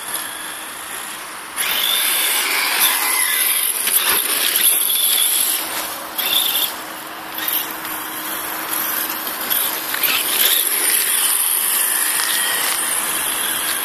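HSP Brontosaurus Pro electric RC monster truck driving under throttle: a high-pitched motor and gear whine with hiss from the tyres. It comes up sharply about a second and a half in, drops back briefly around the middle, then runs on steadily.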